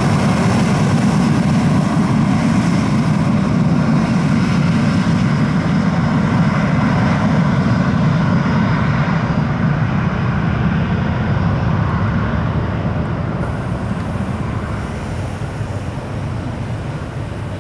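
Cessna Citation 650 business jet's twin Garrett TFE731 turbofans at takeoff power, a steady roar. From about halfway through it fades and loses its hiss as the jet climbs away.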